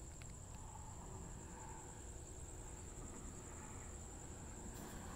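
Crickets trilling steadily at night, a continuous high-pitched chorus over a faint low rumble.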